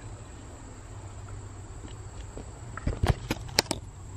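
A quick run of sharp clicks and knocks about three seconds in, from a hand gripping and turning a metal doorknob and working its latch.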